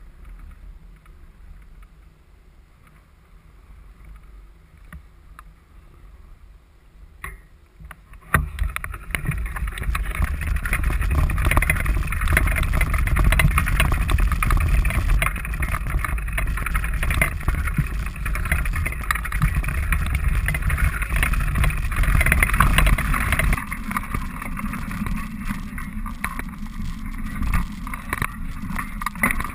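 Low ambient noise at first. About eight seconds in, a loud steady rush with constant bumping and rattling begins: a touring bicycle rolling along a rough dirt path, with wind on the microphone.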